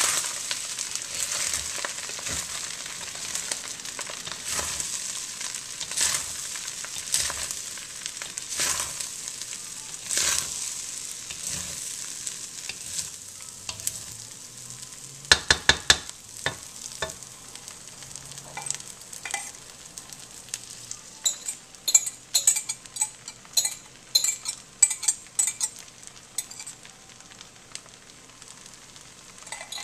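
Fried rice sizzling in a steel wok while a wooden spatula stirs and scrapes through it in regular strokes. In the second half the sizzle is quieter and there is a run of quick, sharp clicks and taps.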